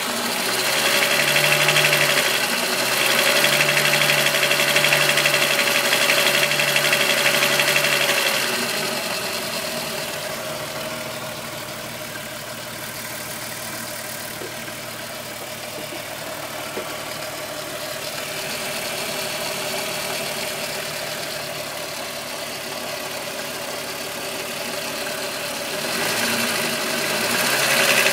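Volkswagen Golf VR6 2.9 engine running steadily, louder for the first eight seconds or so and again near the end. It carries a noise like a rubbing timing chain, which the owner says grew louder after he replaced the upper hydraulic chain tensioner.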